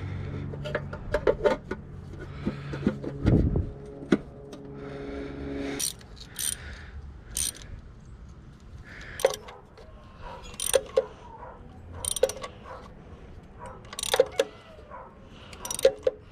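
Metal tools and parts clinking and knocking during hands-on engine work: a string of sharp, irregular clinks. A steady hum stops about six seconds in.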